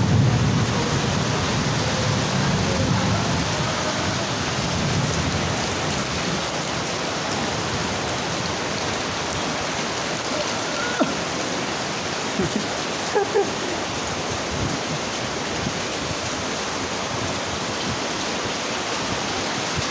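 Heavy rain pouring steadily, a dense even hiss of water, with a few short sharp taps a little past halfway.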